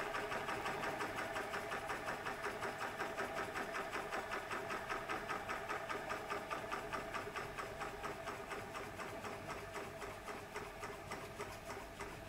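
Model Huxtable hot air (Stirling) engine running, its mechanism ticking in a quick, even rhythm that slowly fades. The burner's gas has just been turned off, so the engine is running down on its remaining heat.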